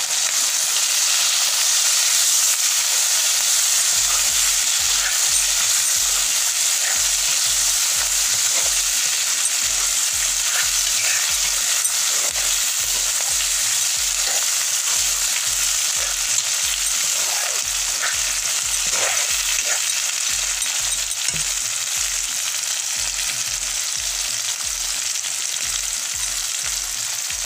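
Chicken pieces sizzling steadily as they fry in hot oil in a black iron kadai, stirred now and then with a ladle that scrapes lightly against the pan. The meat is in its first stage of browning.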